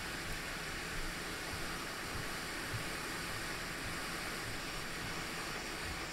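Hot air rework station blowing a steady hiss of air onto the ANX7447 USB-C controller chip, reflowing its solder joints on the laptop motherboard.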